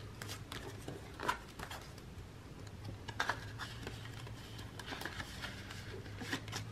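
Paper banknotes rustling as a few dollar bills are counted off and slid into a paper cash envelope: scattered soft crisp rustles, a couple slightly louder about a second and three seconds in.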